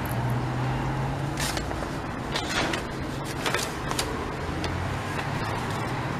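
Paper and plastic wrapping rustling and crinkling in short bursts as a diamond painting kit's instruction sheets are handled, over a steady low motor hum in the background.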